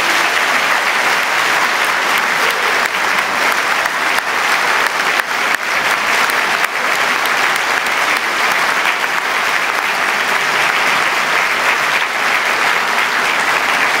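Audience applauding: dense, steady clapping that begins right after the orchestra's final chord.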